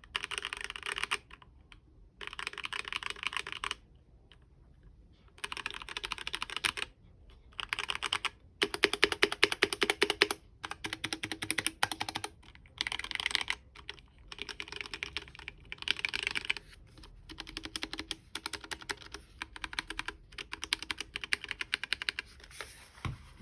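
Typing on a HyperX Alloy Origins mechanical keyboard with red linear switches: runs of rapid key clicks, broken by short pauses of a second or two.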